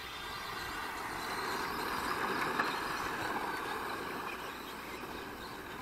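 Several radio-controlled model cars setting off together, their small motors making a wavering buzz that swells and then eases slightly.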